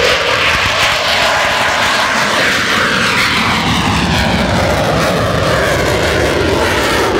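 Jet aircraft taking off and climbing steeply, its engine noise loud and continuous, with a whine that slides down in pitch as it passes and pulls away.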